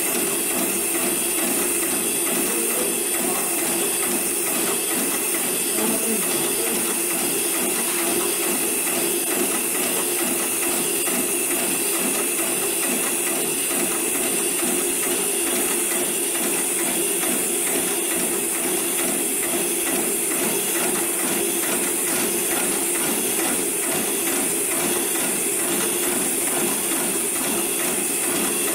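Hightex 733 programmable industrial bar tacker sewing a bar tack through thick braided rope, running steadily with fast, even needle strokes.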